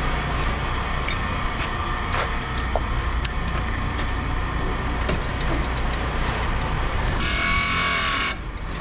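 Scattered light metallic clinks of scrap copper and brass pieces being handled and sorted, over a steady low engine rumble. About seven seconds in, a loud hiss lasts about a second and cuts off suddenly.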